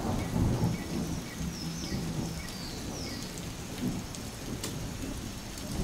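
Rumbling, hissing noise of a crash dying away, fading over the first second and then holding low and steady, with a few faint high chirps.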